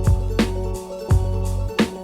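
Background music with a steady drum beat, a deep bass line and sustained instrument notes.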